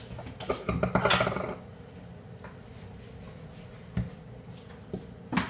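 Metal spoon scooping avocado flesh into a ceramic bowl, with the clinks and knocks of spoon and knife against the bowl and countertop: a cluster of clatter about a second in, then single sharp clicks near four seconds and again at the end.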